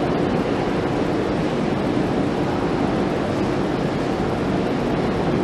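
Steady, even background hiss with a faint low hum, with no knocks, voices or other distinct sounds standing out.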